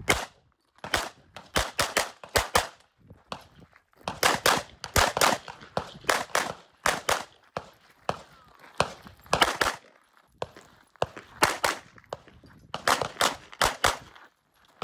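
Pistol-caliber carbine fired in quick strings of two to four shots, each string a second or two apart, with short gaps between them.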